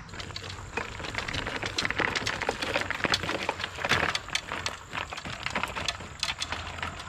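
Folding wagon cart's small wheels rolling over gravel and dirt, a dense, irregular crackle of crunching stones mixed with footsteps, loudest about four seconds in.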